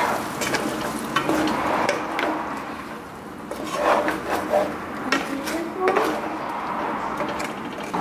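Pork ribs in red salsa sizzling in a frying pan while a wooden spatula stirs them, with scattered scrapes and knocks against the pan.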